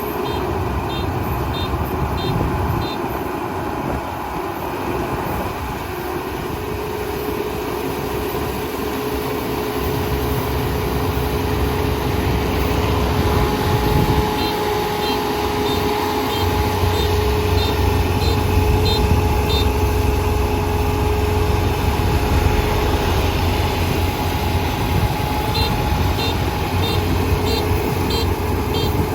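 Kubota ER470 rice combine harvester running steadily with a low rumble and a steady hum, while its beeper sounds in short runs of about two beeps a second, near the start, in the middle and near the end.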